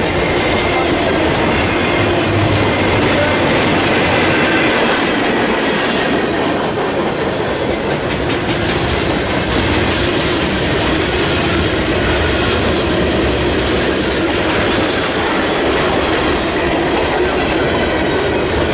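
Freight train cars rolling past: steel wheels running steadily over the rails with a clickety-clack over the rail joints and a few faint, thin squealing tones.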